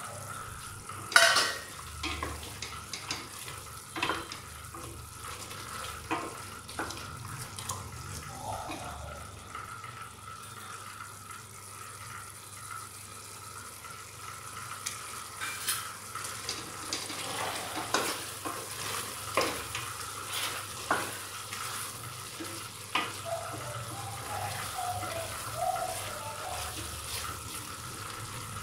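Mutton curry sizzling and bubbling in a stainless steel pot as its liquid cooks down, with a spatula scraping and knocking against the pot while ground masala is stirred in. There is a sharp clack about a second in, and a faint steady hum runs underneath.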